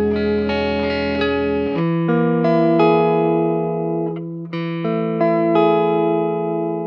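Baranik B-1 electric guitar played through an Empress Compressor MKII pedal and amp, picking a slow melodic line over held low notes, each note sustaining long and even. The bass note changes about 1.7 s in, and the playing briefly thins about 4 s in.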